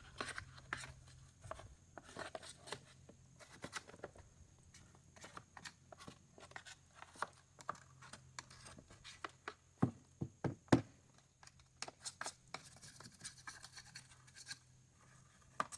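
Hand work on dirty engine parts: irregular scraping, scratching and small clicks of tools and metal, with a few heavier knocks about ten seconds in.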